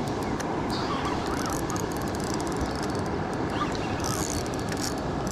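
Steady rush of floodwater pouring over a spillway, with a few faint honks from geese over it.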